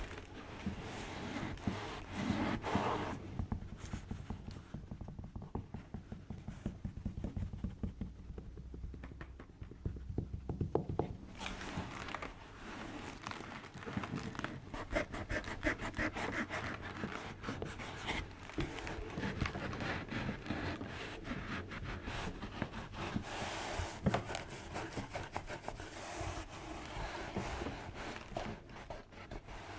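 Close-miked rubbing, scraping and crinkling sounds full of rapid small clicks, with heavier low thuds for several seconds a few seconds in.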